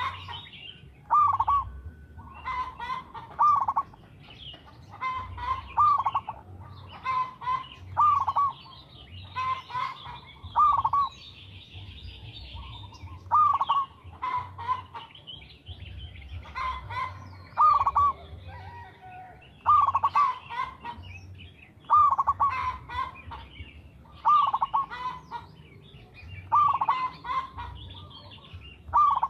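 Zebra dove (perkutut) cooing its song: short, clear coos in small groups, recurring every second or two. Other small birds chirp higher in the background.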